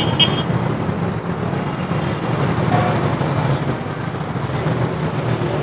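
Steady low rumble of motor vehicle engines, with a brief high chirp about a quarter second in.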